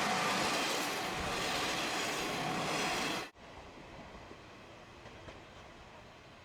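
A diesel train on the JR Shikoku Dosan Line passes close by with a loud rushing rumble of wheels and engine, carrying a steady high whine. The sound cuts off abruptly a little past three seconds in, leaving faint, steady background noise.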